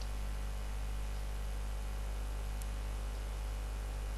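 Steady low electrical hum with even hiss: background noise of the recording with nobody speaking. A faint tick about two and a half seconds in.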